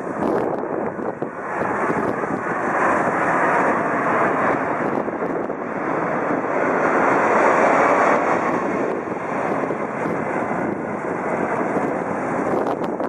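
Boeing 767 airliner's jet engines, a loud steady rushing roar that swells over the first few seconds, is loudest just past the middle and eases slightly toward the end, as the landing plane passes.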